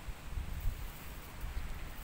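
Wind buffeting the microphone, an uneven low rumble that swells and falls, over a faint steady hiss.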